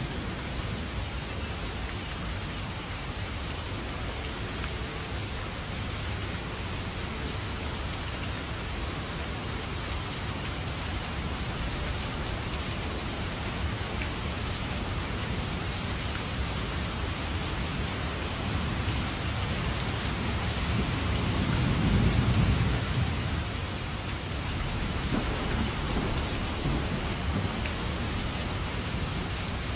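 Heavy rain pouring down in a steady hiss, with a low rumble of thunder that swells and fades about two-thirds of the way through.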